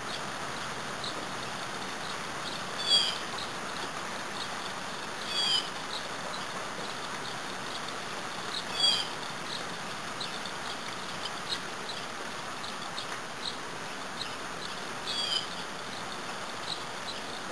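Light rain falling: a steady hiss with scattered small ticks of drops. A bird gives a short call four times, spaced a few seconds apart; these calls are the loudest sounds.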